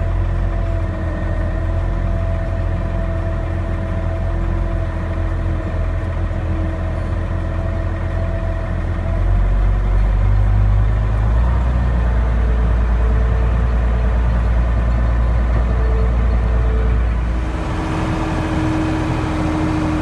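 Tractor engine running steadily under load while driving a Case IH round baler through its PTO shaft during baling, the engine drone and the baler's steady mechanical hum shifting slightly in pitch and load partway through.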